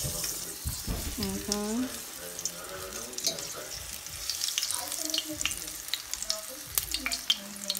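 Oil sizzling around a batter-coated roll deep-frying in a stainless steel skillet, with sharp spitting pops that come more and more often from about halfway through.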